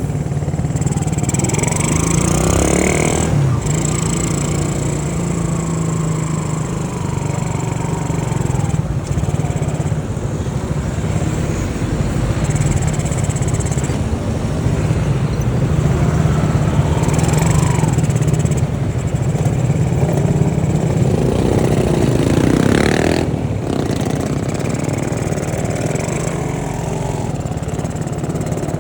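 Honda C70 motorcycle's small four-stroke single-cylinder engine running on the move, its note rising and falling a few times with the throttle.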